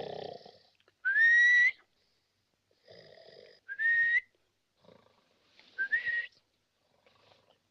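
A man snoring in a comic cycle: a short rasping snore, then a clear whistle that rises and holds. The cycle comes three times, and the first whistle is the loudest.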